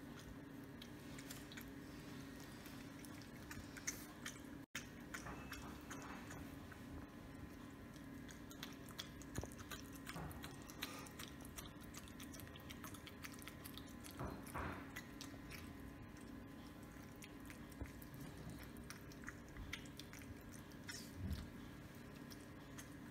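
Red fox eating wet food from metal bowls: faint chewing and lapping with small clicks, over a steady low hum.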